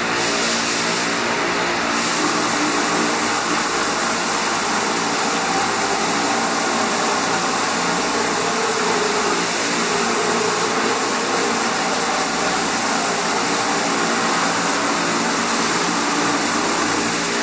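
A 2006 Haas TM-2 CNC toolroom mill running: a steady machine hum with several fixed tones over a hiss.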